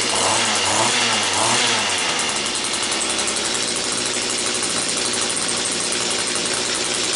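Mantis rototiller's small gasoline engine running after a restart from years of storage. It revs up and down about three times in the first two seconds, then runs steadily.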